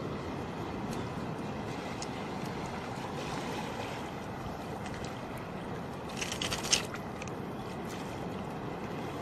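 Steady rush of wind on the microphone and surf washing over a shallow reef flat, with a short burst of clicks and clatter about six seconds in.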